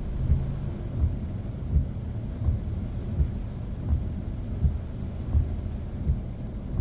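Heavy rain on a car, heard from inside the cabin as a steady low rumble and hiss. Fast windshield wipers sweep through it, with a soft thump about every 0.7 seconds.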